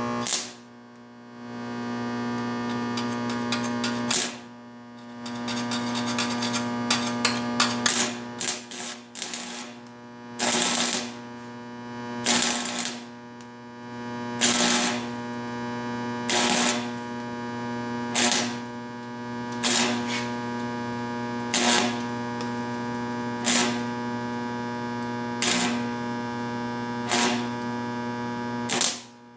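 Stick welder humming steadily while a 308 stainless electrode is struck on a stainless exhaust pipe. A cluster of quick crackling arc strikes comes about eight seconds in, then short bursts of arc crackle, each about half a second, roughly every two seconds: the arc is being struck and broken in short stitches.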